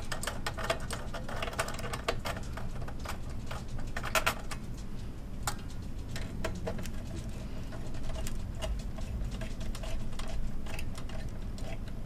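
Small irregular clicks and rattles of hands handling cables and parts inside an open computer workstation's metal case, with a few louder clicks about a second and four seconds in.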